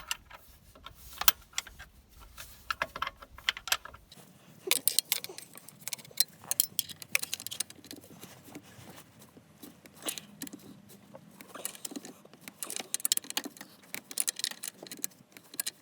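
Irregular metallic clicks and clinks of a hand wrench working a 14mm nut loose, some in quick clusters.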